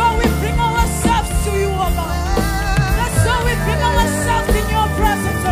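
Live gospel worship music: women singing into microphones with a wavering, held vibrato over a band with steady bass and a regular beat.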